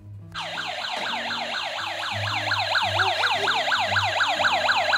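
Battery-operated toy police car playing its electronic siren, a rapid repeating falling wail several times a second, with a simple beeping tune underneath; it switches on about a third of a second in.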